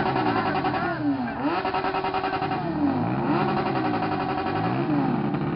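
Motorcycle engine with a straight-through exhaust, revved hard about four times: each rev climbs fast, holds at high rpm for about a second, drops and climbs again. Loud.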